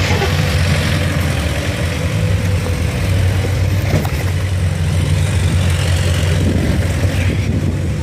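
VW diesel engine of a converted Jeep Wrangler running steadily at low revs as the Jeep crawls over boulders.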